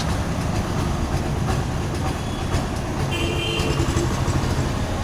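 Steady low mechanical rumble with a rapid clatter running through it, and a brief high steady tone about three seconds in.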